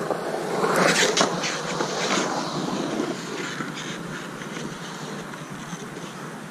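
Skateboard wheels rolling on concrete with a few sharp clacks in the first seconds, then the rolling fades steadily as the board moves away.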